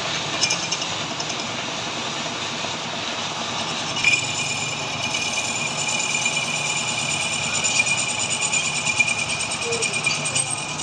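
Metal lathe running with steady mechanical noise; about four seconds in, the cutting tool bites into the work and a steady high-pitched squeal sets in and continues.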